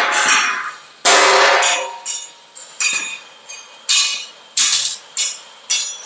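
Hammer blows on steel, about ten sharp ringing strikes less than a second apart, each ring dying away before the next.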